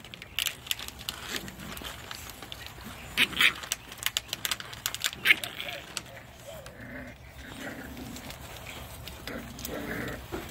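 Olde English Bulldogge puppies playing: a string of sharp clicks and knocks from their scuffling, then short puppy vocalizations in the second half while two puppies tug on a rope toy.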